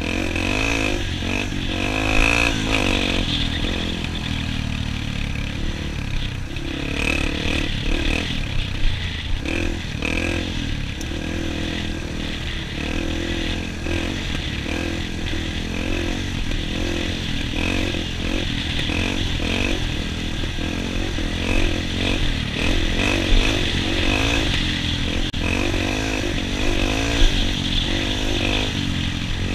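Dirt bike engine running under way on a gravel road, its pitch rising and falling again and again as the throttle is worked, with a low rumble underneath.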